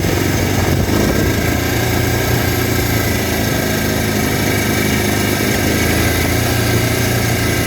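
Kawasaki Brute Force ATV engine running at a steady, even pitch.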